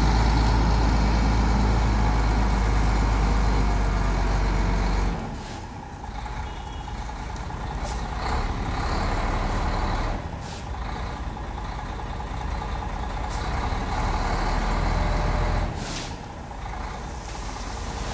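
Shacman H3000 dump truck's diesel engine running under load to drive the hydraulic hoist as the loaded bed tips up. The engine is loud and steady at first, drops away sharply about five seconds in, then swells and falls back twice more.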